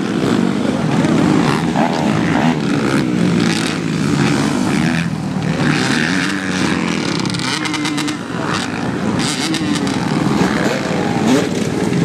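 Several off-road dirt bike engines revving up and down at low speed, the pitch rising and falling repeatedly as the riders work their throttles over an obstacle.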